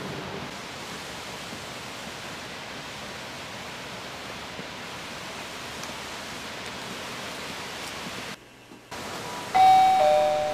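Steady outdoor background hiss, then near the end a doorbell chime rings a two-note ding-dong, a higher tone falling to a lower one and fading out.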